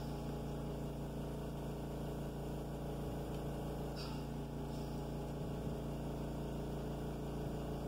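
Steady low hum with a buzz of many even tones: background room tone.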